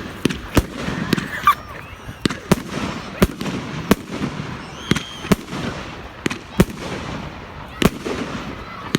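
Fireworks going off in a rapid, irregular run of sharp bangs, about two a second, some louder than others.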